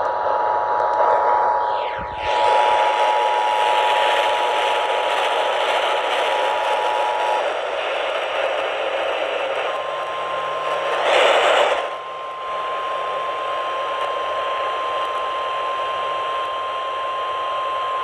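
Emergency Alert System two-tone attention signal, two steady tones sounding together, from a radio over heavy AM static for about seven and a half seconds. After a short gap a single steady weather-alert tone comes in and holds to the end, with a brief loud crackle of static about eleven seconds in.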